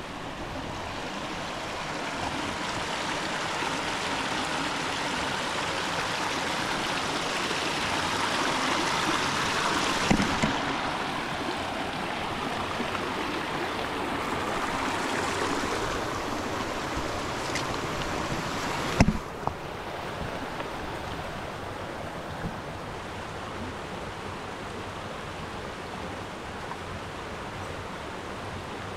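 Shallow rocky forest stream rushing steadily over stones, loudest about ten seconds in and duller from about nineteen seconds on. A few sharp knocks come around ten and nineteen seconds in.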